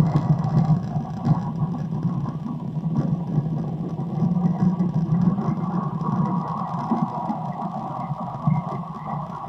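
Recorded sound of a small car driving past slowly, played back: a steady low noise with a higher hum above it, slowly fading.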